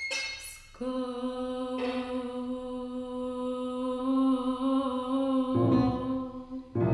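Contemporary chamber music: one long held note near middle C, wavering slightly. Lower, fuller instrumental notes enter about five and a half seconds in.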